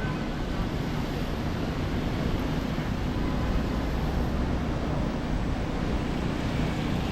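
Steady city street noise of passing traffic, with wind rumbling on the camera's microphone.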